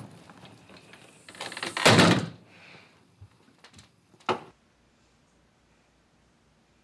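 A glass storm door swinging shut: a rush of air ending in a heavy thud about two seconds in, then a few light clicks and one sharp click a couple of seconds later.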